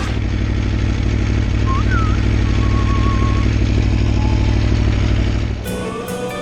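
Aprilia Tuono V4 1100 Factory's V4 engine idling with a steady, even pulse. Music comes in near the end.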